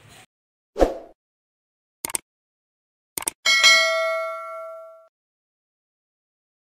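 Subscribe-button animation sound effects: a soft pop, a quick double mouse click, another click, then a bright notification-bell ding that rings out and fades over about a second and a half.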